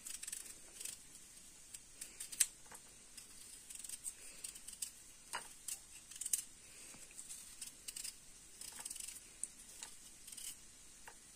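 Small kitchen knife peeling a raw potato by hand: faint, irregular cutting and scraping strokes as the peel comes away in strips, with one sharper click about two and a half seconds in.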